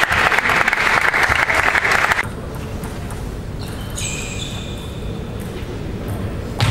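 Spectators clapping and applauding in a large hall, stopping abruptly about two seconds in. The room then goes quieter, with a few short high-pitched squeaks.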